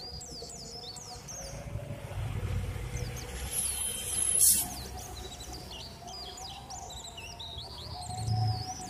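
Small birds chirping continuously, with a faint steady whine underneath, likely the stepper motors of a homemade CNC foam cutter at work. A single sharp click comes about halfway through.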